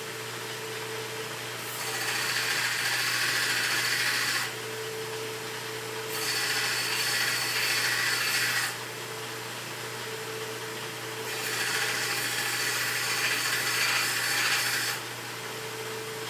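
Belt sander running steadily, with three grinding passes of a few seconds each as a brass rivet in a mainspring barrel is ground down against the belt.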